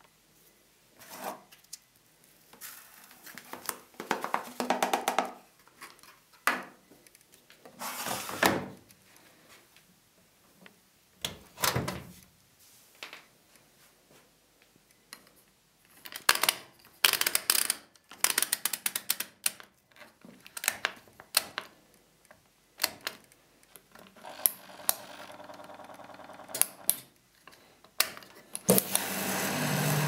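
Controls of an Eudora Supernova 1002 washing machine being handled: knocks and clicks from the detergent drawer and panel, and a dense run of clicks as the programme selector knob is turned. Near the end the machine starts up with a sudden, steady hum.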